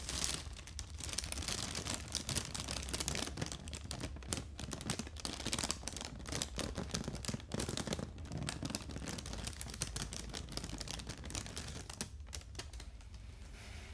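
Plastic air-cushion packing pillow crinkling as it is squeezed and handled, a dense run of small crackles that thins out near the end.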